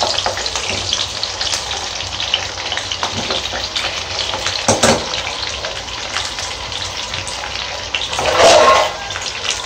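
Diced green capsicum cubes sizzling in hot oil in a nonstick frying pan, a steady crackling hiss as they are lightly sautéed to take off their rawness. A short knock about five seconds in and a louder, brief sound near the end.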